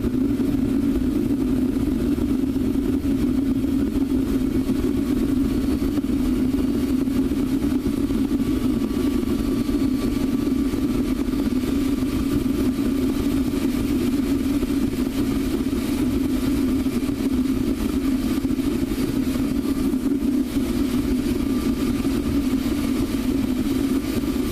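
Propane-fired foundry burner firing into the furnace: a steady, unbroken rushing noise that stays even throughout.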